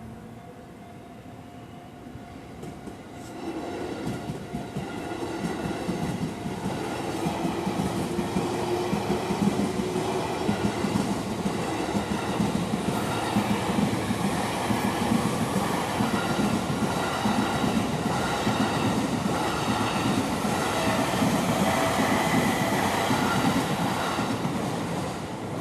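Takasaki Line electric train passing over a level crossing: it builds up about three to four seconds in, then a long, loud run of wheels clattering over the rails, easing off only at the very end. A steady ringing tone, the crossing's warning bell, sounds under it at the start.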